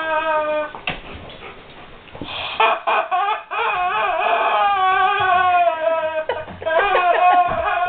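German Shepherd dog whining in several long, high, wavering whines.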